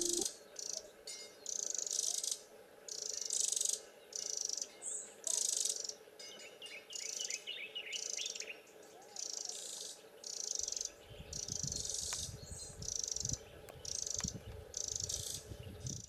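Eurasian wren singing, with a fast run of sharp, high trilled notes, over a steady high-pitched pulsing about once a second. A low rumble comes in around the middle.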